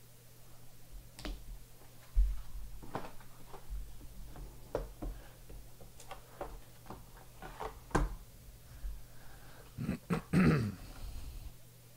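Hard plastic card cases clicking and knocking as they are handled and set down on a table, with low thuds, one of them loud about two seconds in. A brief louder low sound comes about ten seconds in.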